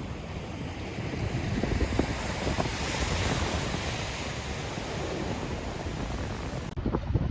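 Ten-foot-plus surf breaking, a rush of whitewater swelling about two to four seconds in, with wind buffeting the microphone. Just before the end the sound changes abruptly to heavier gusts of wind on the microphone.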